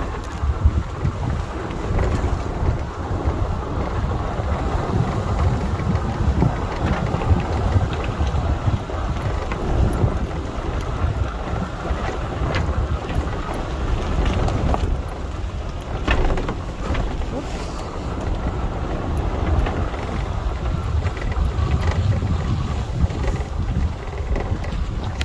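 4x4 vehicle driving on a rough dirt road: a steady engine and tyre rumble with wind buffeting the microphone and a few short knocks and rattles.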